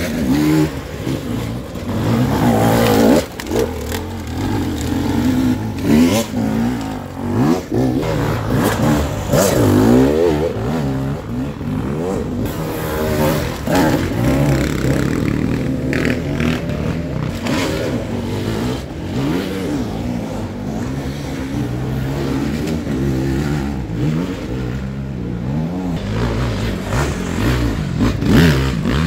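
Enduro dirt bike engines revving hard on a loose, steep hillclimb, the pitch rising and falling again and again as riders blip the throttle.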